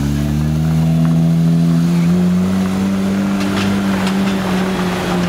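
Porsche 911 GT3's flat-six engine pulling away at low revs, its pitch rising gently over the first two seconds and then holding steady.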